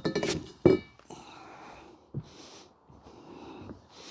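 Greenhouse frame pipes clatter together in the first second, with a brief ringing. Then come several soft, breathy sniffs or breaths, about half a second apart.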